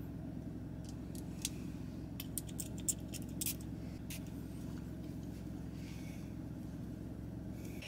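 Valentino Donna Born in Roma perfume atomizer spritzed several times in quick succession, short hissing sprays in the first half, over a steady low hum inside the car.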